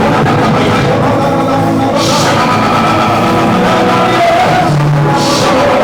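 Loud live band music with singing, steady and full, with two bright crashes, about two seconds in and near the end.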